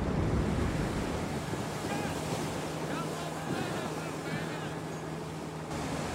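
Steady rushing roar of high-pressure fire hoses and a blowing-out oil well, with a low steady hum joining about two seconds in and stopping abruptly near the end.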